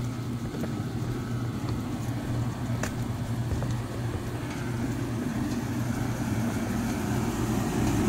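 A machine running with a steady low hum, with one faint click about three seconds in.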